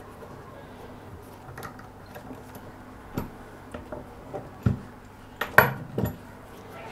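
Kitchen knife and sanding tools being handled and set down on a work surface: scattered light clicks and clinks, with a few louder knocks near the end.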